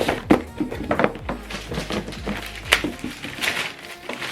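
Recycled cardboard and paper packaging being handled and opened: rustling with scattered clicks and knocks.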